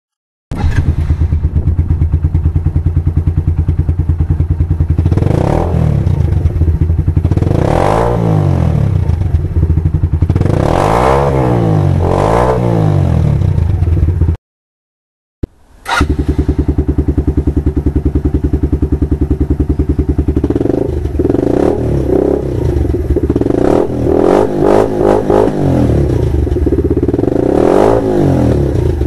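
Pulse Adrenaline 125 motorcycle's single-cylinder engine through an aftermarket Yoshimura exhaust, idling and revved in short blips that rise and fall. The blips come several in quick succession in the later part. The sound cuts out for about a second midway.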